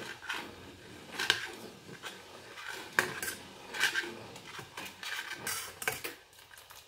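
Metal spoon stirring sugar into hot milk in a stainless steel pot, clinking and scraping against the pot's sides and bottom. Sharp clinks come about once a second, with a quicker run of scrapes after about five seconds.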